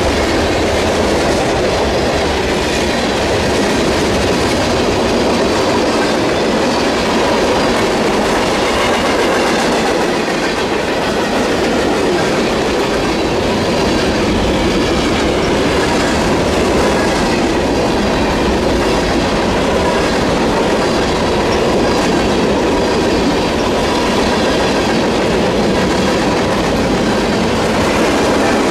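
Freight train cars rolling steadily past, their wheels clicking over the rail joints in a continuous loud rumble.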